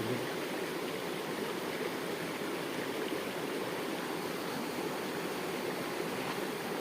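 River water flowing, a steady rushing sound.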